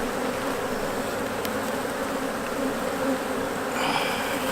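Many honeybees buzzing steadily around an opened hive, a dense, continuous hum from the colony.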